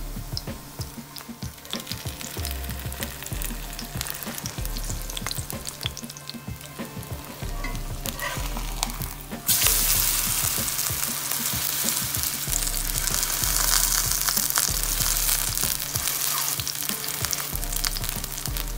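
Kimchi pancake frying in oil in a cast-iron skillet, sizzling and crackling. About halfway through the sizzle jumps suddenly louder as the pancake is turned onto its raw side in the hot oil.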